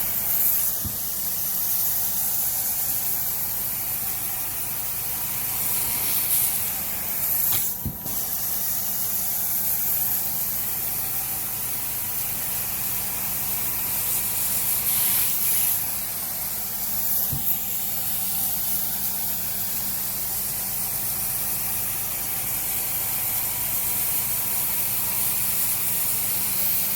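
Carpet-cleaning extraction machine running: a steady hiss of spray and suction over a low motor hum, with a brief dip about eight seconds in.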